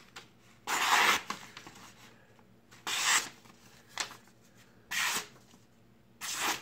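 A freshly sharpened Becker BK7 knife blade slicing through sheets of printer paper in four short swishing cuts, the first the loudest: a paper-cutting test of the edge's sharpness.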